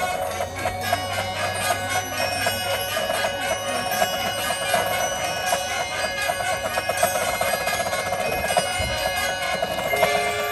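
High school marching band playing its field show: a passage of quick repeated notes with ringing held tones above them, and a new held note entering near the end.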